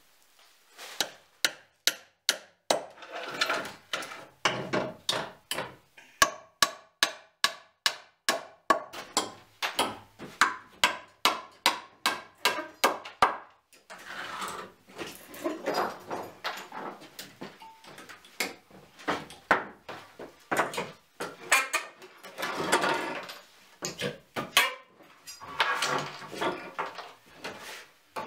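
Hammer striking old wooden boards, about two blows a second, followed by slower, longer scraping strokes as nails are worked out of the boards.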